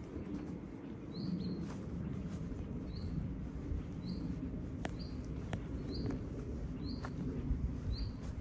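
A small bird repeating a short, high rising chirp about once every second, over a steady low background rumble, with two sharp clicks about five seconds in.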